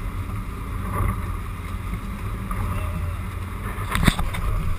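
Fishing boat under way: its engine drones steadily low, with wind and water rushing past a camera mounted on the boat. A few sharp knocks and clicks come about four seconds in.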